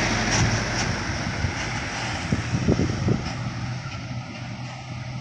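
Loaded sugarcane truck's diesel engine pulling under load as the truck passes close by, then fading steadily as it moves away.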